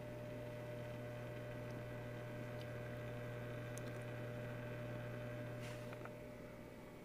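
Steady low electrical hum of running reef-aquarium equipment, easing off about six seconds in, with a few faint ticks.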